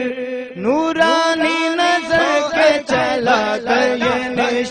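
An Urdu devotional chant (manqabat) sung as the song's chanted refrain. A long held note with vibrato fades just after the start, then a rising note leads into short, evenly paced chanted syllables.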